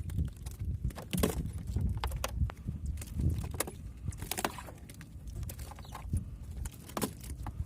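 Scattered small clicks, knocks and rattles of fishing gear being handled in a small boat, over a steady low rumble.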